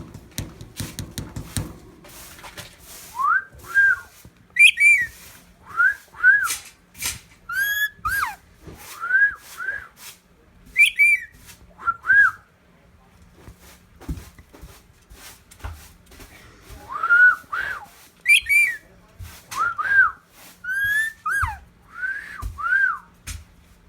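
Pet talking bird whistling a series of short up-and-down whistles, mostly in pairs, with a pause partway through.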